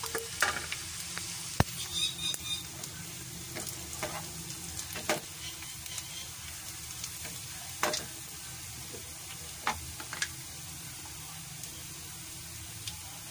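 Sliced onions and cumin seeds sizzling steadily in hot ghee in a steel pan as a tarka, the onions turning pink. Scattered sharp clicks come from a metal ladle stirring against the pan.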